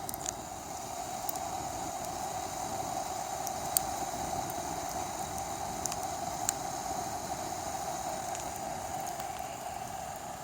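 Camping kettle of water heating over a smouldering campfire: a steady hiss from the kettle, with a few sharp crackles from the fire, the loudest about four seconds in.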